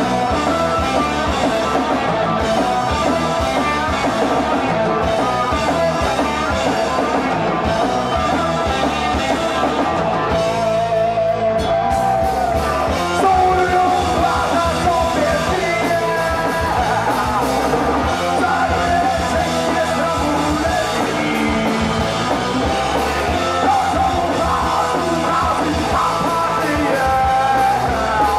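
A rock band playing live: electric guitars, bass guitar and drum kit with a man singing into the microphone.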